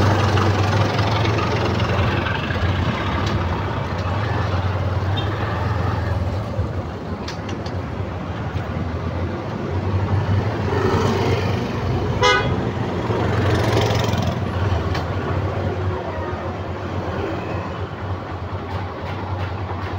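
Street traffic noise with a vehicle engine running in a low, uneven hum, and a short horn toot about twelve seconds in.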